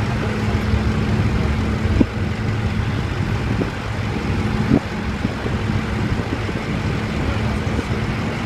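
Steady low engine drone with a constant hum, the ramp noise of an airliner pushback. Two short knocks come through, about two seconds in and again nearly five seconds in.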